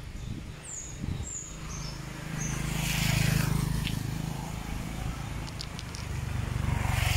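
A motor vehicle's engine running close by on the road, swelling louder about three seconds in and again near the end. A few short high chirps sound about a second in.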